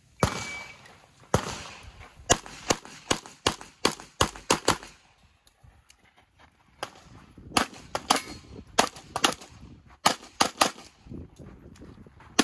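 A shot-timer start beep, then a fast string of handgun shots, mostly in quick pairs, with a pause of about two seconds in the middle while the shooter moves.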